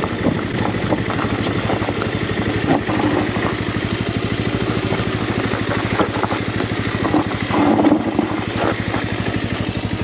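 Motorcycle engine running at low revs with an even, rapid beat of firing pulses as the bike rolls slowly over a rough, stony gravel track, with scattered clatter from the loose stones.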